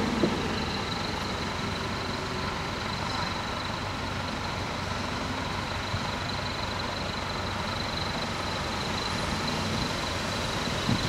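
Dutch level-crossing warning bells ringing steadily while the barriers are down, over the low sound of road vehicles idling at the crossing.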